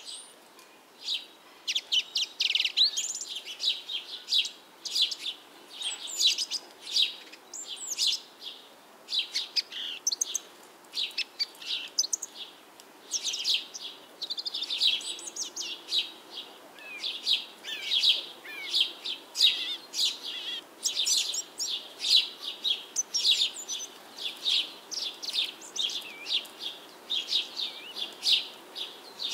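Small birds chirping and twittering in a busy chorus: short, high chirps, several a second, with no break.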